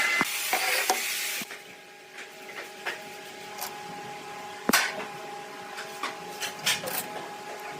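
Woodworking shop sounds: a loud hissing noise that cuts off suddenly about a second and a half in, then scattered light knocks and clicks of wood and tools over a steady faint hum, one sharp knock standing out near the middle.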